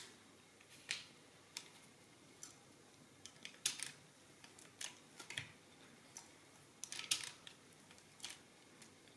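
EOS mechanical calculator's crank-driven mechanism clicking as the crank is turned slowly by hand: sharp separate clicks at uneven intervals, roughly one a second, some coming in short clusters.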